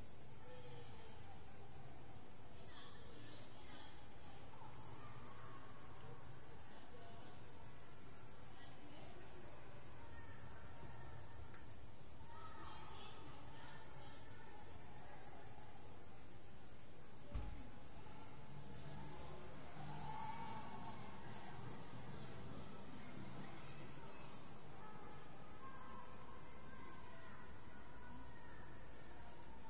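Crickets chirring in a continuous high-pitched trill that drops out for a moment about two-thirds of the way through. Faint distant sounds lie underneath, with a single low thump about 17 seconds in.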